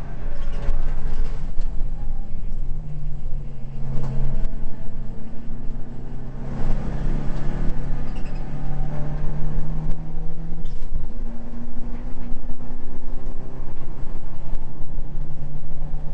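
Mitsubishi Lancer Evolution VII race car's turbocharged four-cylinder engine heard from inside the cabin, running hard on track, its note climbing and dropping several times.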